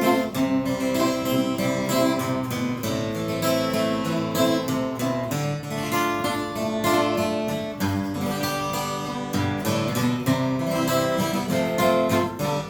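Acoustic guitar strummed in steady chords with no singing: an instrumental interlude between verses of a song.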